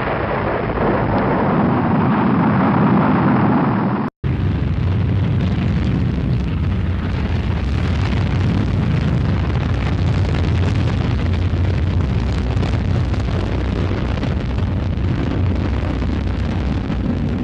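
Rocket engine roar: a loud, steady deep rumble with a grainy hiss above it. It breaks off for an instant about four seconds in, then a second, fuller recording of rocket roar runs on unchanged.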